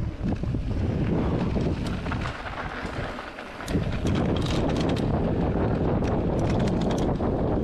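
Wind buffeting the bike-mounted camera's microphone and tyres running over a loose gravel trail as a mountain bike descends, with many sharp clicks and rattles from stones and the bike. The rumble eases for about a second and a half around the middle, then returns with a knock.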